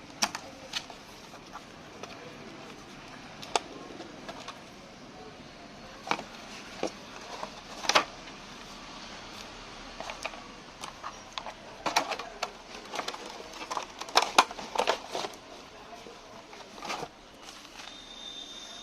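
Scattered sharp clicks and knocks at irregular intervals over a steady low hiss, thickest a little past the middle, with a short high beep-like tone near the end.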